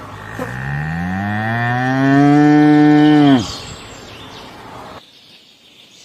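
An adult cow lowing in one long moo. The pitch rises, then holds steady, and the call cuts off about three and a half seconds in.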